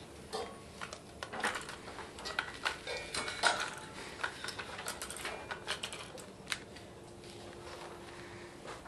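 Irregular light clicks and knocks of trophies being picked up and set down on a pool table, with papers handled among them; the clatter is dense for the first six seconds or so, then thins out.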